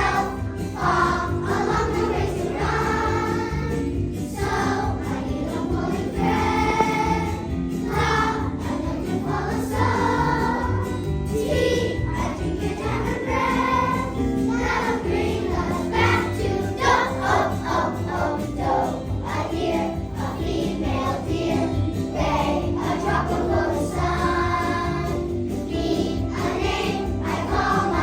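A choir of second-grade children singing a song together over instrumental accompaniment.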